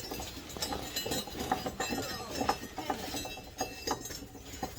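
Light metallic clinks and taps, irregular and several a second, as a mower blade bolt and its blade are turned and seated by hand on the deck spindle.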